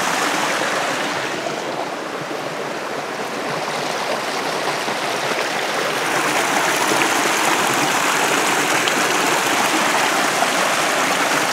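Small mountain brook rushing and splashing over rocks in a steady flow. It dips slightly about two seconds in, then holds even.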